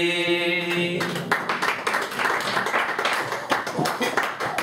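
A man's unaccompanied sung Basque improvised verse (bertso) ends on a long held note about a second in. Applause then breaks out and runs on, mixed with voices.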